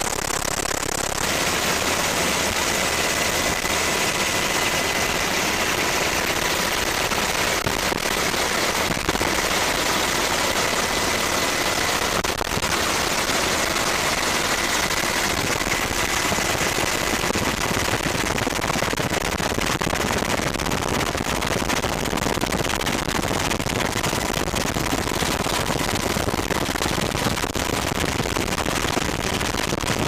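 Steady, loud din of a helicopter's engine and rotor heard from aboard the filming aircraft, with a rapid chopping pulse and a faint high whine that fades out about two-thirds of the way through.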